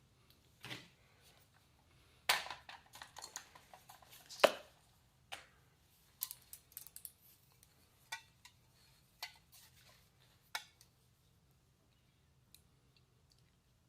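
Small metal carburetor parts being handled on a workbench: irregular light clinks and clicks, with one sharper knock about four and a half seconds in, thinning out over the last few seconds.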